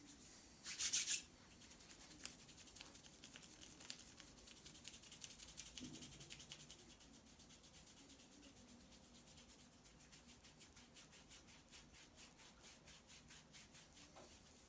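Faint sound of hands rubbing in a massage: one louder, scratchy rub about a second in, then a long run of quick, even rubbing strokes.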